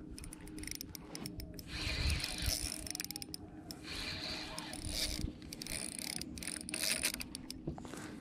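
Spinning reel being cranked while fighting a hooked fish: a fast run of gear clicking and whirring from the reel.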